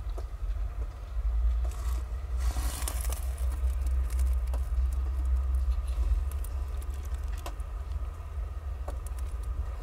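Mother cat purring, a low steady rumble, with scattered small clicks and rustles of the nursing kittens and bedding. A short rush of rustling comes about two and a half seconds in.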